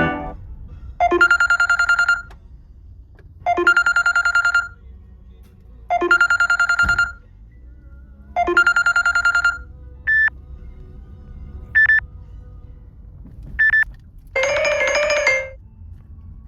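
Samsung Galaxy S8+ ringtones played through the phone: a trilling electronic ring of about a second, repeated four times at even spacing. It gives way to three short high beeps and a brief burst of several tones near the end, as the next tone begins.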